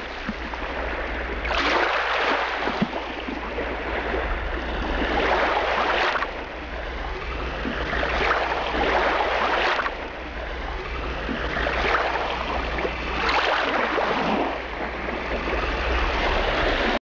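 Small waves washing onto a beach, swelling and falling every couple of seconds over a steady low rumble, then cutting off abruptly at the end.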